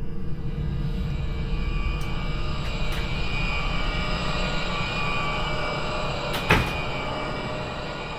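A low, steady rumbling drone with faint high tones over it, fading slowly near the end, with one sharp knock about six and a half seconds in.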